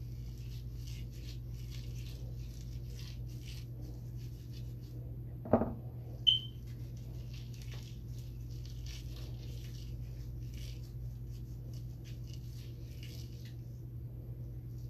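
Fingers massaging a wet homemade avocado hair mask through curly hair: faint, irregular soft rustling and squishing over a steady low hum. Two brief louder sounds stand out about five and a half and six seconds in: a short thump and a short high chirp.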